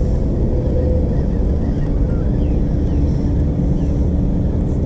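Steady wind rumbling on the microphone, with a faint constant hum underneath.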